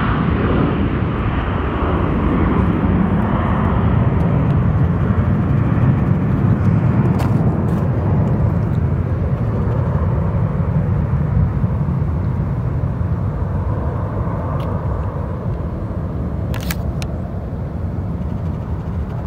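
The twin Rolls-Royce BR710 turbofans of a Bombardier Global 5000 business jet at takeoff climb power, a deep steady rumble that slowly fades as the jet climbs away, its higher hiss thinning out first.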